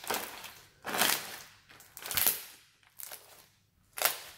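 Pink slime squeezed and kneaded by hand, giving about five short squelching pops as air pockets in it burst.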